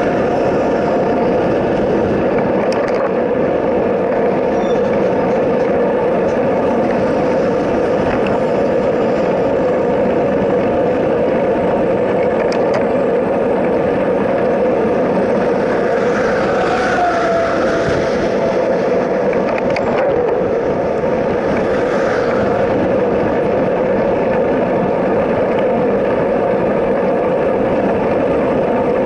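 Steady rushing road and wind noise from riding along a highway shoulder, wind on the microphone. About 16 seconds in an oncoming vehicle swells past, its pitch dropping as it goes by, and another passes near 22 seconds.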